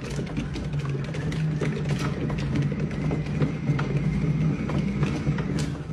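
Large cat exercise wheel rumbling steadily as a kitten climbs its carpeted track, with many quick clicks and scrabbles from claws gripping the carpet.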